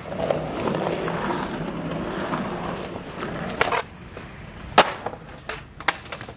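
Skateboard wheels rolling on concrete, then the board knocking and clacking against the concrete: a cluster of knocks about three and a half seconds in, one sharp crack a second later, and a few lighter clicks near the end.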